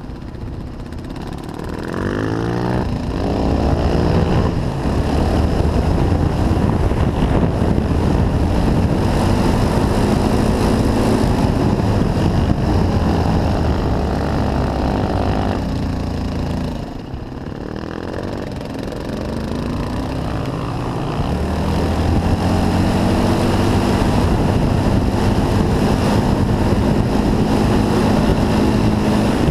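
Yamaha Raptor 700R's single-cylinder four-stroke engine, with a Pro Circuit exhaust, pulling hard under load on sand. About two seconds in the revs climb quickly, and then the engine runs at steady high revs. Around the middle the throttle eases off briefly, and then the revs climb back up to a steady high note.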